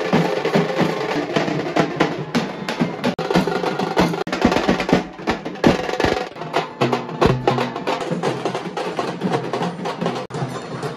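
Dhol-tasha procession drumming: large barrel dhols beaten with sticks together with tasha drums played with thin sticks, in a dense, continuous rhythm of rapid strokes.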